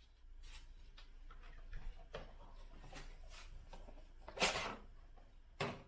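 Hands working the air filter housing and filter on a car engine: rubbing and scraping of plastic with scattered light clicks, and a louder sharp scrape or snap about four and a half seconds in, then another short one near the end.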